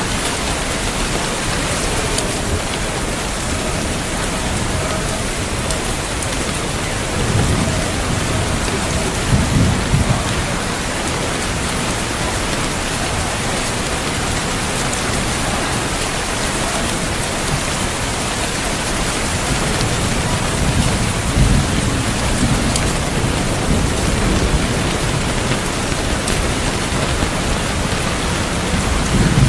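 Steady heavy rain with low rumbles of thunder, one swelling about a quarter of the way in and another later on.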